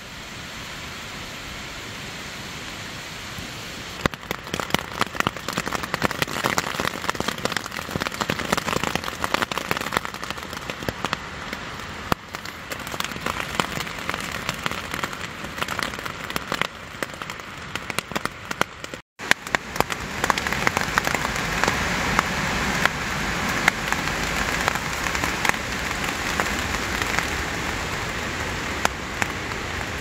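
Rain pattering on a hammock's rain fly, many separate drop hits over a steady hiss. There is a brief cut about two-thirds of the way through; after it the rain is louder and steadier.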